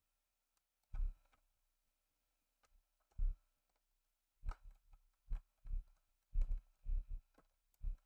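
Laptop battery pack being pressed and seated into its bay in an opened ASUS X553S: short plastic knocks and clicks, two sparse ones early and then about seven in quick succession from the middle on.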